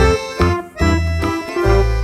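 Upbeat background music with accordion-like melody over a bouncing bass line.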